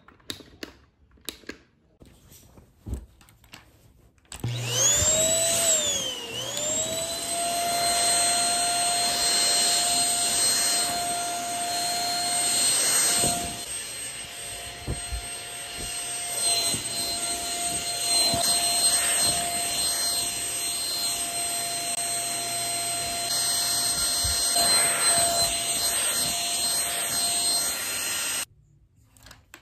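Keromee handheld dust mite vacuum cleaner: a few light handling clicks, then about four seconds in the motor starts with a rising whine that dips and climbs again before settling. It runs steadily while it is pushed over a bed sheet and cuts off suddenly about a second before the end.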